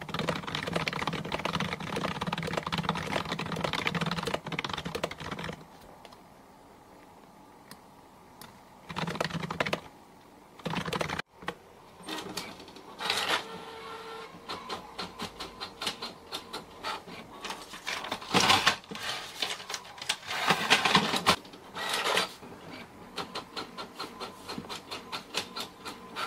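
Rapid keyboard typing at first, then a desktop office printer running: a rhythmic mechanical clatter with louder bursts as it feeds and prints pages.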